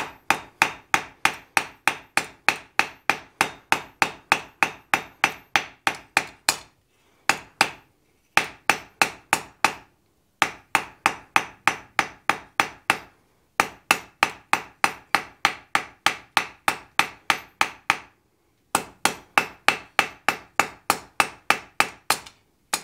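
Hand hammer striking a hot mouse-tail taper held in tongs on a steel anvil: a steady run of ringing blows about three a second, broken by a few short pauses. These are finishing blows rounding the tapered tail from octagon to round as the metal cools, which helps knock off the scale.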